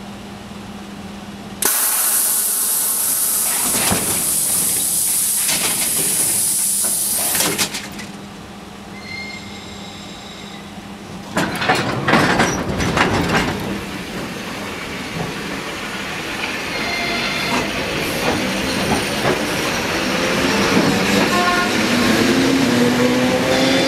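Electric commuter train starting away from the platform. A steady low hum gives way to a loud hiss of compressed air for about six seconds, then clanks and clicks as the train starts to move about eleven seconds in. After that comes a whine that rises steadily in pitch as it gathers speed.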